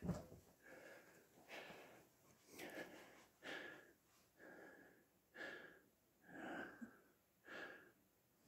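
Faint, wheezy breathing of an elderly man, each breath coming about once a second with a slight whistle to it. There is a soft thump right at the start.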